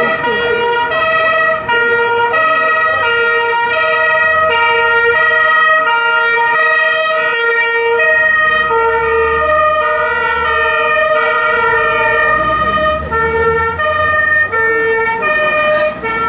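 German fire-service two-tone horn (Martinshorn) on fire-brigade vans, alternating between a low and a high note about every 0.7 seconds. The vans' engines rumble as one passes about halfway through.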